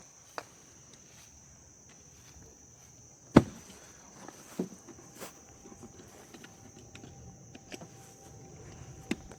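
A single gunshot about three and a half seconds in, with a few lighter clicks and knocks before and after it. A steady high insect drone runs underneath.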